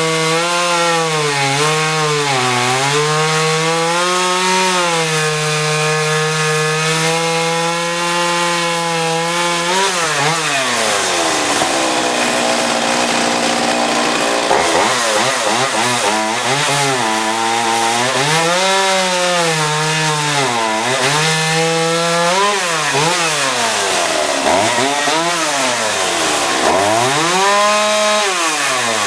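Jonsered 535 Classic two-stroke chainsaw cutting seasoned hardwood, its engine at high revs and sagging in pitch as the chain loads in the cut. About a third of the way through the revs fall away and stay low for a few seconds, then climb again for more cutting, with several quick rev swings up and down near the end.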